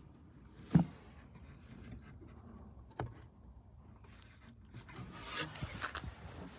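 A dull knock about a second in and a smaller click near three seconds, then rubbing and rustling near the end.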